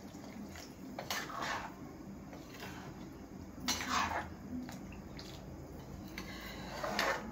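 A metal spoon scraping and clinking against a metal pan of paneer curry as it is stirred while water is poured in, in a few short strokes spread several seconds apart.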